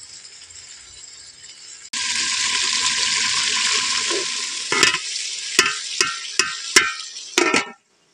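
Liquid sizzling loudly in a hot metal cooking pot, starting suddenly about two seconds in and slowly dying down. In the second half, a quick run of about seven sharp metal clanks as a slotted metal ladle knocks against the pot and the lid goes on.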